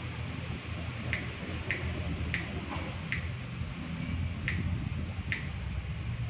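About six sharp clicks at uneven intervals, over a steady low hum.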